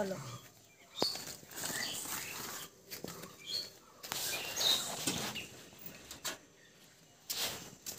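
Footsteps and rustling of someone walking, with short bird chirps now and then.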